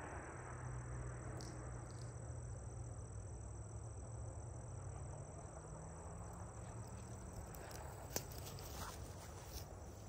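Crickets trilling steadily over a low background rumble, with one sharp click about eight seconds in.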